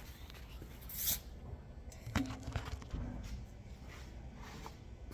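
Cardboard shipping box being opened and handled: scattered light knocks, scrapes and rustles, with a sharper click about a second in.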